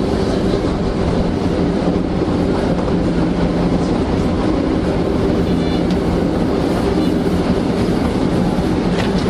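Toei Asakusa Line 5300 series electric train running at steady speed, heard from inside the car: a continuous rumble of wheels on rail with a constant low hum.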